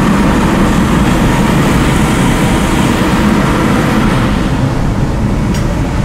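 Sonofresco 1 kg gas-fired fluid-bed coffee roaster running steadily, its hot-air blower churning the beans, with one sharp click near the end. The roast has reached first crack.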